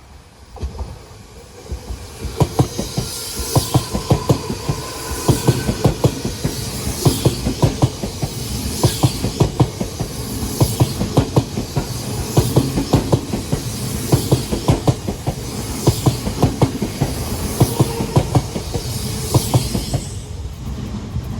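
Odakyu Line electric train passing close by, its wheels clacking over rail joints in quick repeating groups over a steady rumble, with a faint whine at times. It builds up about two seconds in and eases near the end.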